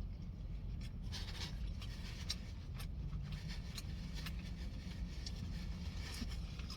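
Someone chewing a burger, with small clicks and brief rustles of the paper wrapper, over a steady low hum inside a parked car.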